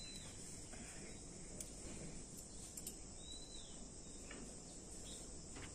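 Steady high-pitched insect buzz, with two short arching calls about three seconds apart and a few faint clicks of a fork and spoon on a plate.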